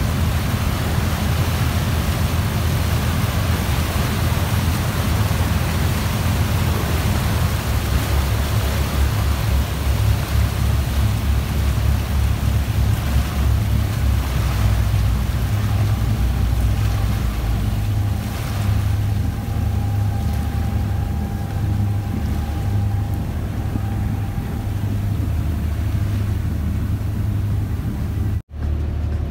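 Motorboat under way: the engine running steadily, with water rushing along the hull and wind buffeting the microphone. The sound cuts out for an instant near the end.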